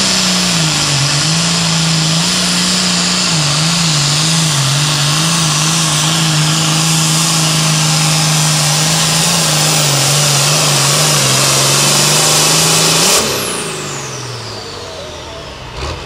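Turbocharged diesel engine of a red International Super Farm pulling tractor running flat out under load as it hauls the sled, its note wavering slightly. About thirteen seconds in, the throttle comes off: the engine note drops and a high turbo whine falls away as it winds down. A brief knock comes near the end.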